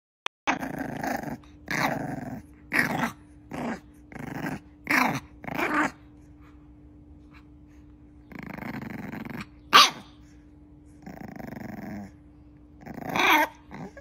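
A bulldog puppy growling and barking: about seven short rough growls in quick succession, then a few longer growls and one sharp bark about ten seconds in.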